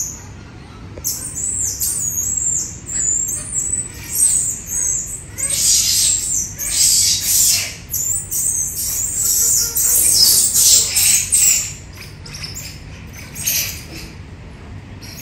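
Many birds chirping, short high-pitched calls that drop in pitch, overlapping densely and thinning out near the end.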